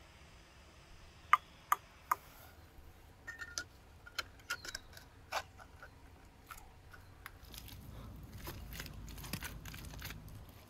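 Hollow clay bricks knocking against each other as they are set in mud mortar: three sharp clicks in the first couple of seconds, then lighter taps. Near the end comes a low rubbing, scraping sound of a gloved hand pressing and smoothing wet mud mortar over the bricks.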